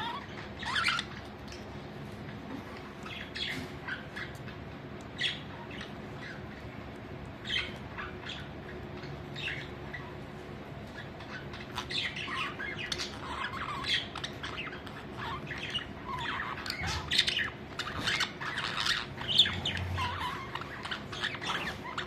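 A flock of budgerigars chirping and chattering. The short calls come scattered at first, then thick and fast through the second half.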